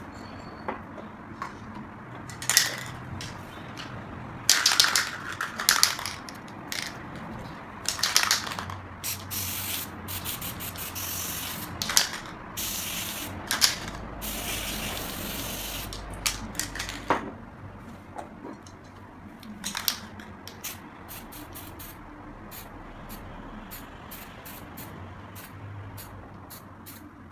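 Aerosol spray paint can spraying in bursts: several longer hisses in the first half, then many very short, quick puffs from about two-thirds of the way in.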